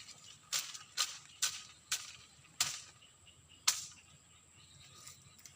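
About six sharp clicks or knocks in the first four seconds, spaced roughly half a second to a second apart. Under them runs a steady high insect drone, like crickets.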